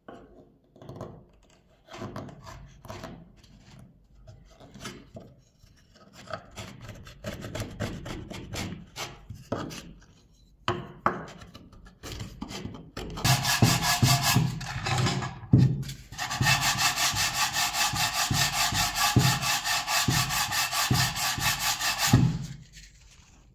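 Utility knife blade scraping old foam and sealant off wooden speaker back panels in short, irregular strokes. About 13 seconds in, an electric random orbital sander starts running on wood, stops briefly, then runs steadily for about six more seconds before cutting off.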